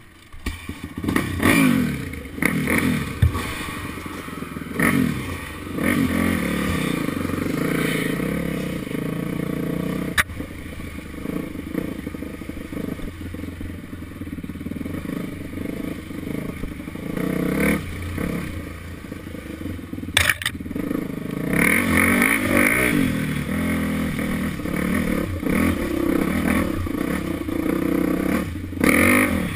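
Dirt bike engine revving up and down as the bike pulls away about a second in and rides rough single-track, with rattles and knocks over the bumps.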